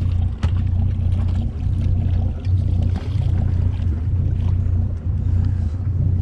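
A boat's engine running with a steady low drone, with a few faint clicks over it.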